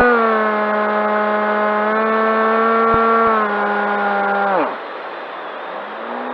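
Electric motor and propeller of a Skywalker FPV plane, heard from on board, whining steadily at a slowly sinking pitch. About four and a half seconds in the throttle is cut and the whine falls away sharply, leaving rushing air. Near the end the motor spools up again with a faint rising whine.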